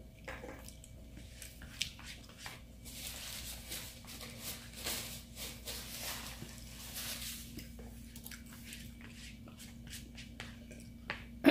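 Close-up eating sounds: chewing and small clicks of the mouth and of a fork on a paper plate, with a few seconds of denser soft rustling in the middle.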